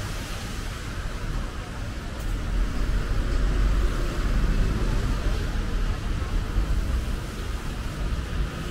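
Wind gusting on the microphone as a fluctuating low rumble, over a steady hiss of traffic on wet streets in the rain.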